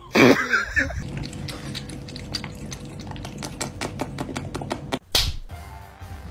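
Cat lapping water from a drinking glass: a quick, even run of small wet laps, about four or five a second, over a faint steady hum. A short loud burst comes near the start, and another sharp one about five seconds in.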